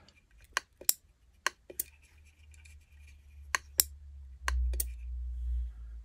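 Meross MSS510 smart light switch being pressed, its paddle button and on-board relay clicking: four pairs of sharp clicks, with a low hum coming up in the second half. The switch is responding again after its open 1N4007 power-supply diode was replaced.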